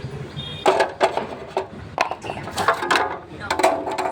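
A run of sharp knocks and clatter, struck in quick clusters roughly once a second, each with a short ringing tail.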